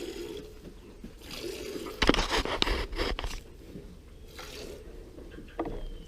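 Streams of milk squirting into a pail during hand milking of a cow, in short hissing spurts, thickest about two to three seconds in.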